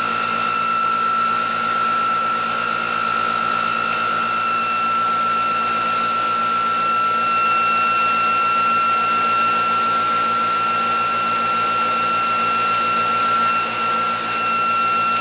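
Bench-mounted electric motor-generator test rig running steadily, giving a high whine over a low hum. The EV drive motor is spinning the ReGen-X quantum motor, which the builder has switched into what he calls regenerative acceleration mode, charging a battery.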